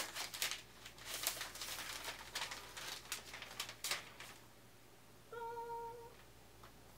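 Rustling and scraping of packaging as a 16-inch MacBook Pro is slid up out of its box and handled, for about four seconds. Near the end, a short hummed "mmm" of delight on one steady pitch.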